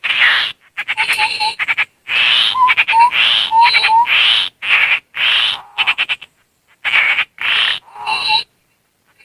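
Bird-lure audio of tepus landak babbler calls mixed with mouth whistling: a rapid run of harsh, rasping chattering bursts with short rising whistled notes between them. It breaks off near the end.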